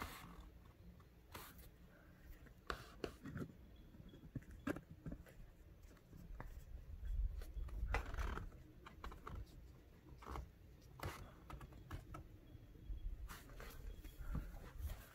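Faint handling noise: scattered small clicks, rubs and scrapes, with a low rumble swelling around the middle.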